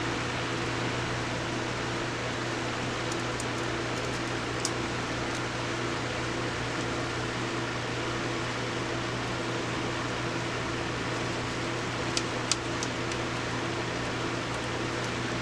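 Steady fan-like whirring hiss with a low hum, and a few faint light clicks, one about five seconds in and two close together near twelve seconds.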